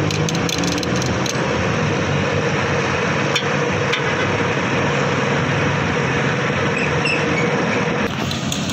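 Electric cotton candy machine spinning, a steady motor hum over road traffic noise, with a few light taps, one about three seconds in. The hum cuts off near the end.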